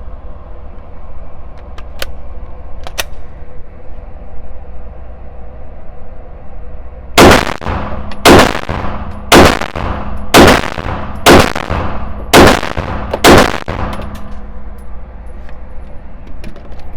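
Glock 34 Gen 5 9 mm pistol fired seven times at a steady pace of about one shot a second, each shot loud and sharp with a short ringing tail; a couple of faint clicks come before the string.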